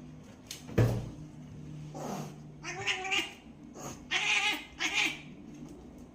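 House cat chattering at a bird: three short bursts of chirping calls in the second half. A sharp knock about a second in is the loudest sound.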